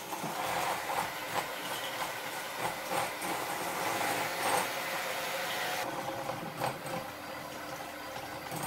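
Handheld electric mixer running steadily, its beaters whipping egg whites with sugar into meringue in a glass bowl, with occasional short clicks.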